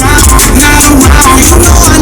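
Loud music with a pulsing bass beat and a wavering melodic line.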